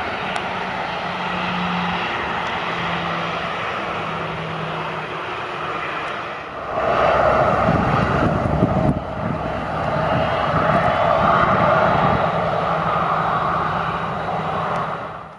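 Jet engines of a Boeing 737-800 (CFM56-7B) running as the airliner taxis, a steady jet roar. Around seven seconds in, a bus passing close by adds a louder low rumble for about two seconds.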